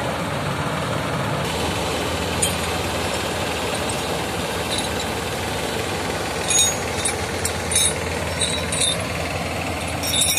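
Diesel tractor engine running steadily, with a few short sharp clicks or rattles in the second half.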